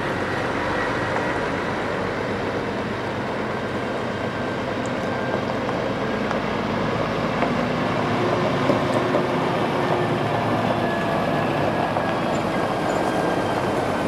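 Diesel engines of Scania and MAN semi-trucks running as the tractor-trailers drive slowly across a gravel lot: a steady drone with no sudden events.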